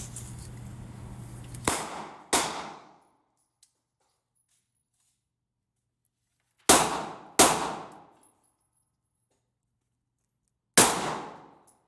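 Five gunshots: two quick pairs about half a second apart, then a single shot near the end, each with a short ringing decay.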